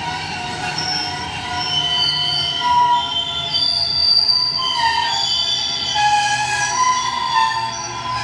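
Train wheels squealing against the rails: several shrill tones overlapping and shifting in pitch, over a low rumble from the rolling train.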